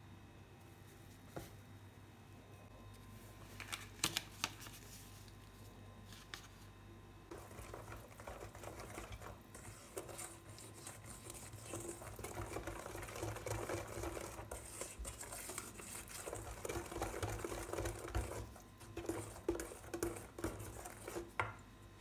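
A coated wire whisk beating a liquid batter in a stainless-steel bowl: a rhythmic wet scraping and splashing that starts about seven seconds in and keeps going almost to the end. A few sharp clicks come about four seconds in, and several knocks near the end.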